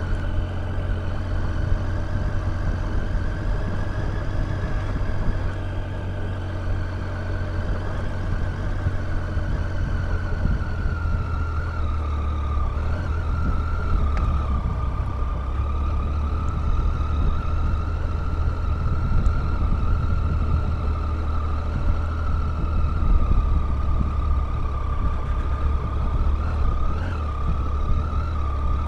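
Triumph Tiger 800 motorcycle's three-cylinder engine running steadily as the bike rides over a rough grass and gravel track, heard from the rider's helmet, with a deep rumble and a steady high whine that drifts slowly up and down in pitch.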